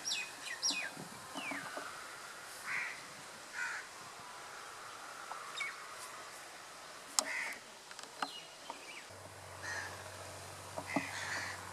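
Crows cawing every few seconds, with small birds chirping faintly in the first couple of seconds. There is a sharp click about seven seconds in.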